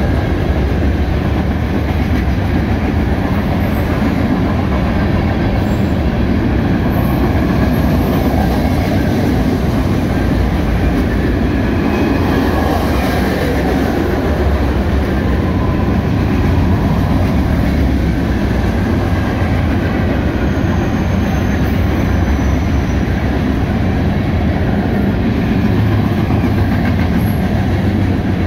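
Freight train cars (covered hoppers, tank cars and boxcars) rolling past close by: a loud, steady rumble of steel wheels on rail.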